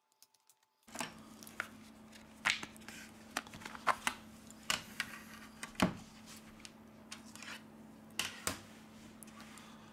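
Plastic back cover of a Xiaomi Redmi 8A being pried off with a thin opening tool: a run of small clicks and snaps as its clips release, with light scraping and handling of the cover, starting about a second in.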